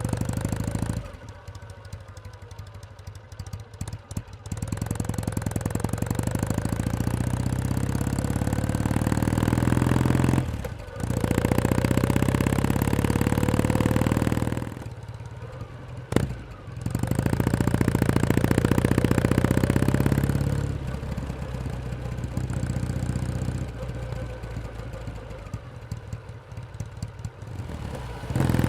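Kawasaki W1S vertical-twin engine pulling through the gears, its note rising in several runs with short drops between shifts. It then runs at a lower, off-throttle level before picking up again near the end. A single sharp click comes about halfway through.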